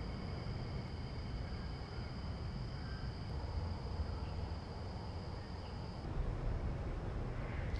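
Insects trilling steadily at several high, even pitches over a low outdoor rumble. The highest trill stops about six seconds in.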